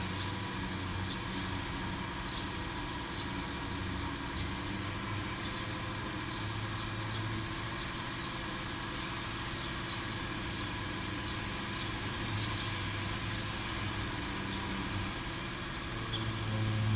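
Small 6090 hobby CNC router running: a steady motor hum with a higher steady tone over it, and short high ticks about once or twice a second. The hum grows louder near the end.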